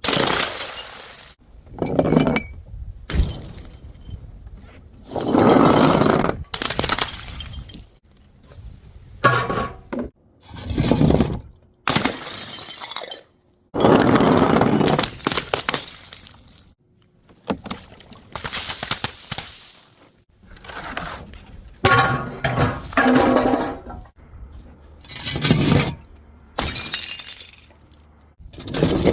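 Glass bottles smashing one after another, roughly every two to three seconds, each crash followed by the clinking and rattling of broken pieces.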